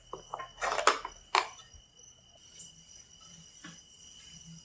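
Product packaging being handled, with a few short rustles and taps in the first second and a half. After that it is quiet except for a faint, steady, high-pitched tone.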